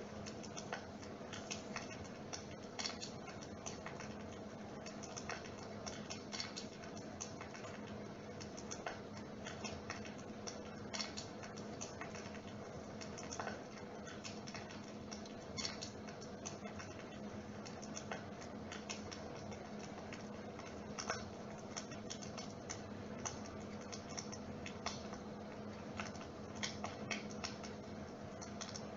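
Dimplex water-mist flame-effect unit running with a steady hum, with many irregular sharp clicks over it.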